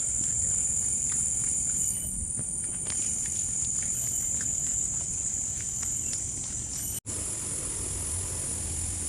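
Insects droning in one steady high-pitched chorus, with faint scattered ticks like footsteps on a trail; the sound drops out for an instant about seven seconds in.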